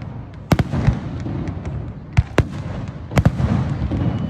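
Aerial fireworks bursting: a series of sharp bangs, often two in quick succession, with smaller crackles and a low rumble between them.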